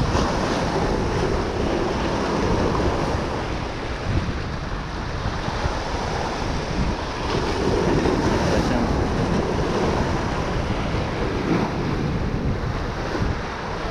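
Wind buffeting the microphone over the steady wash of breaking surf, rising and falling in gusts.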